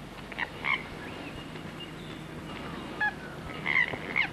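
Birds calling outdoors: short calls repeated every half second to a second, over a steady low background.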